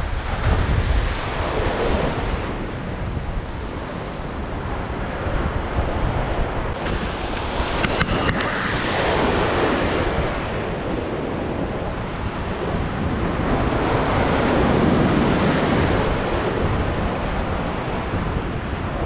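Ocean surf washing and breaking against a pier, swelling and ebbing every few seconds, with wind buffeting the microphone.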